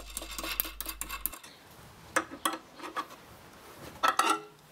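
Steel nut and washer clinking and rattling on a threaded rod as the nut is run on by hand: a quick run of light metallic clicks, then a few single clinks.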